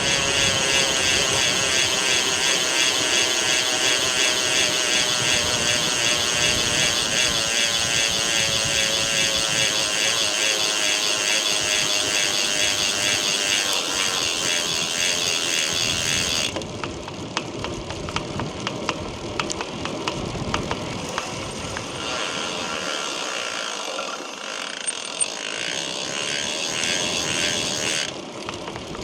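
Chris King R45D rear hub's freehub buzzing loudly and high-pitched as the wheel spins, with sharp cracking clicks through it. This is the crackling noise the hub has developed again after its internals were already replaced once. The buzz eases off about halfway through, leaving mostly clicks, then picks up again for a while before dropping off near the end.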